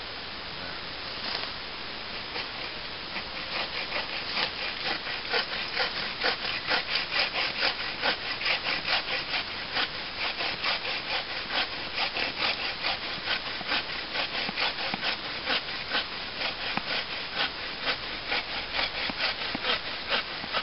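Folding bushcraft frame saw cutting through a dead log, a rhythmic back-and-forth rasp of its coarse teeth at about two to three strokes a second, settling into a steady pace about three seconds in.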